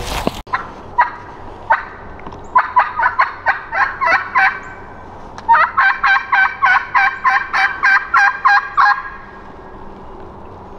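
A hunter's turkey call run in series of loud, sharp hen yelps to strike up a gobbler: three spaced notes, then a fast run of about ten, a short pause, and a longer run of about fourteen that stops about nine seconds in.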